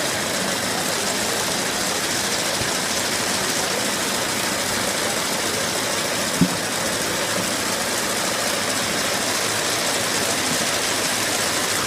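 Braiding machine for elastic cord running with a steady mechanical noise, with one sharp knock about six seconds in.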